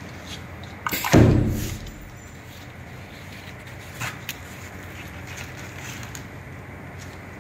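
Setting up work at a HighTex FIBC911-400H automatic big-bag sewing machine, which is not yet stitching. A loud clunk comes about a second in, with a short low rumble dying away. Two light clicks follow about four seconds in, over a steady low machine hum.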